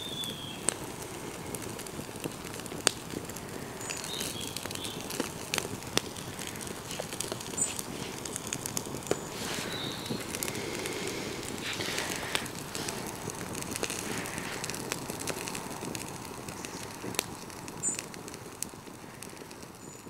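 Wood campfire crackling, with sharp pops every second or so over a steady hiss.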